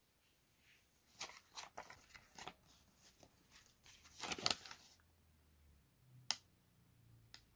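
Paper banknotes crinkling and rustling as they are handled and swapped, in a run of quick crackles that is loudest about four and a half seconds in. A single sharp click follows about a second later.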